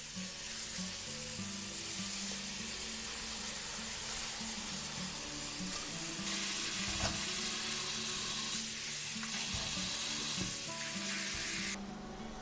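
Tap water running in a steady stream onto tomatoes in a stainless steel sink, splashing as they are rubbed under it; the water sound stops just before the end. Soft background music runs underneath.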